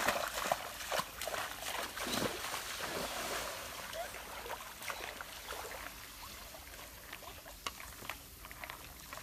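Water splashing and sloshing as someone runs and wades through a shallow stream, loudest at the start and fading, with scattered light clicks.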